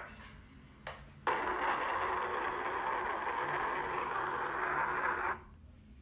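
BDA-2 microphone jammer switched on: after a click, a loud steady hiss of white noise starts suddenly about a second in, masking the recording, and cuts off abruptly about four seconds later.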